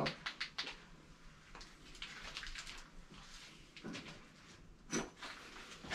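Faint, scattered clicks and scuffs, with a louder knock about five seconds in.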